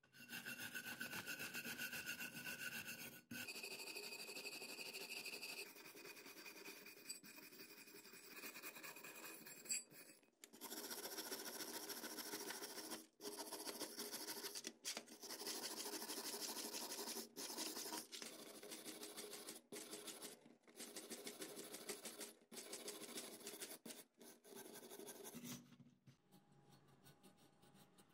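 A stiff brush scrubbing rust off small metal fan parts, rapid back-and-forth scraping strokes with short breaks, stopping about 25 seconds in.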